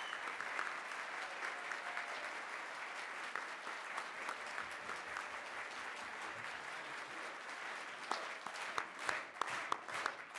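A large audience applauding: dense, steady clapping from many hands, thinning to scattered separate claps near the end.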